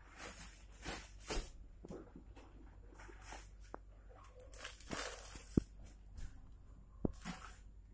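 Rustling and handling noises in a small room, a short burst every second or so, with two sharp clicks, the louder about halfway through and another near the end, as someone moves about handling supplies.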